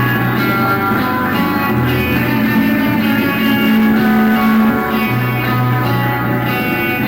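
A band playing loud, dense guitar music, with a bass line that moves to a new note every second or two.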